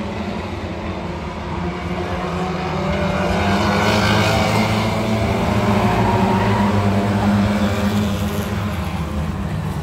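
A pack of Lightning Rods stock cars racing together, their engines running as one dense, steady sound, growing louder through the middle as the pack sweeps past close by.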